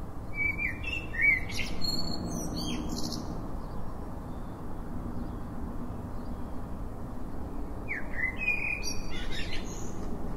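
A songbird singing two short phrases of quick, varied high chirps, one just after the start and another near the end, over a steady low background rumble.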